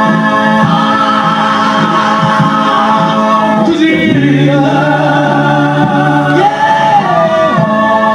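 Male gospel quartet singing in close harmony, voices holding long chords that move to new chords about four seconds in and again near the end.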